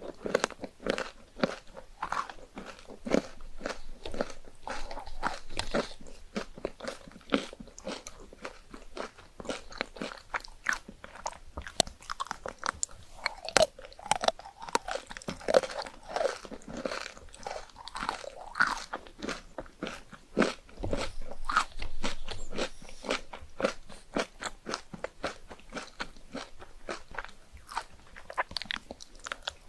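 Crunching bites and chewing of chocolate ice cream: a dense run of sharp crackling crunches, several a second.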